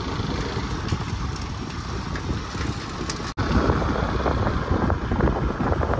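Steady wind rumble on the microphone while moving along on a bicycle, mixed with road noise. It cuts out for an instant about halfway through and comes back louder and gustier.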